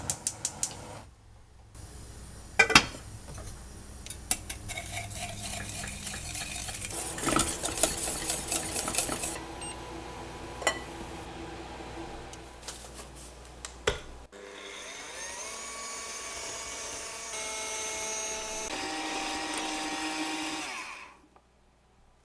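Small electric kitchen mixer running in a bowl, with scattered clinks against it; in the second half its pitch steps up and down through several speeds before it switches off suddenly near the end.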